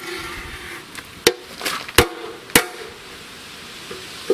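Sharp metallic knocks, four spread over the few seconds, each with a short ring, from work on the camshaft bearing caps of a VAZ-21099 cylinder head while their mating faces are being levelled. There is a light scraping in the first second.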